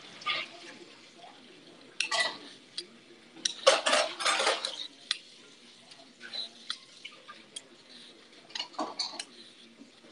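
Dishes and cutlery clattering during cooking: scattered clinks and knocks, with short bursts of rattling about two seconds in, a longer burst around four seconds in, and another near the end.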